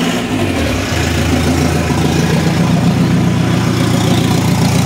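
Mahindra Bolero pickup's diesel engine idling steadily, just after being started. It is running again after its accident-damaged wiring was reconnected. The idle note shifts and settles just under a second in.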